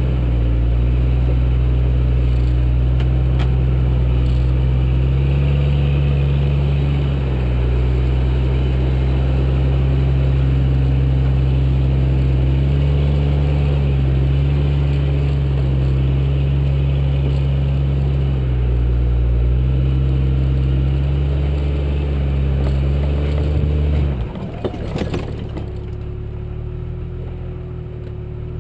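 A 4x4's engine runs loud and close under load, its note stepping up and down with the throttle as it crawls up steep slickrock. About 24 seconds in, the engine sound drops away abruptly amid a few knocks as the vehicle tips onto its side, leaving a quieter steady hum.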